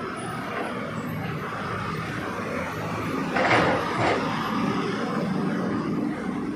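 Backhoe engine running steadily, with a brief loud rushing noise about halfway through that lasts under a second.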